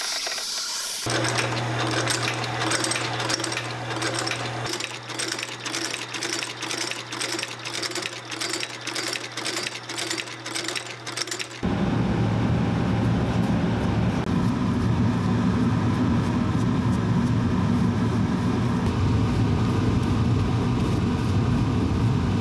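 A motor-driven shoe-repair machine hums steadily with a rhythmic clacking about twice a second as a shoe is worked against it. About twelve seconds in, the sound cuts to a louder, steady low rumble of workshop machinery running.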